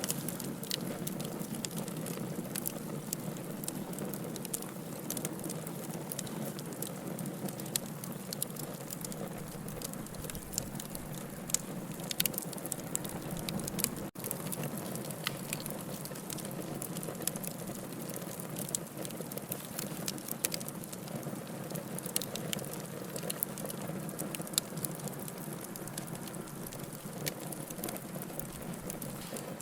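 Campfire burning: a steady low hiss with frequent sharp crackles and pops from the burning wood.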